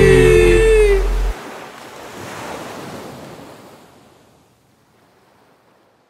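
A song ends on a held sung note over bass and cuts off abruptly about a second in. A soft rushing noise follows, swells briefly and fades away to near silence.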